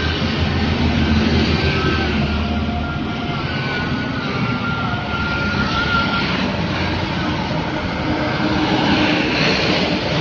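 Steady road traffic passing close by: light trucks, a minivan and motorbikes, their engines and tyres blending into continuous noise. More motorbikes go by near the end.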